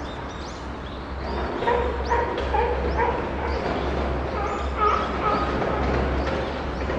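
Chimpanzee crying: a run of short, high-pitched calls in quick succession that grows louder about a second and a half in.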